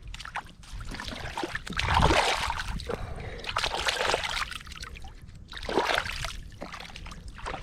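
Water washing and splashing, swelling and fading about every two seconds.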